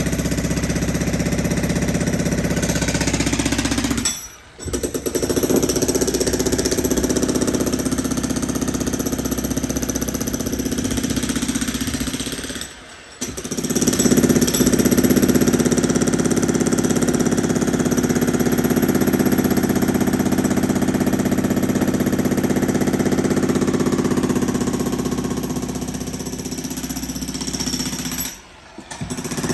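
Breaker hammer pounding concrete in long, rapid runs, stopping briefly three times.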